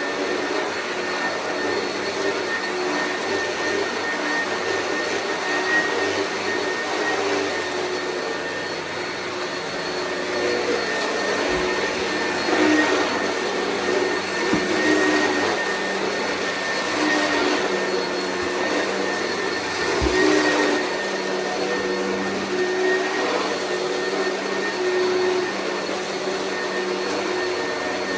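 Oreck vacuum cleaner running steadily, its motor tone and loudness wavering slightly. Two brief low knocks come about halfway through and about two-thirds of the way in.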